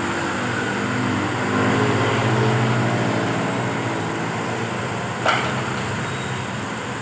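Steady mechanical hum of a running motor, swelling slightly about two seconds in, with one sharp click about five seconds in.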